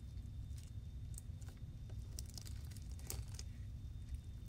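Hands kneading bead-filled slime mixed with shaving cream: scattered crackles and small wet pops as it is folded and pressed, over a steady low hum.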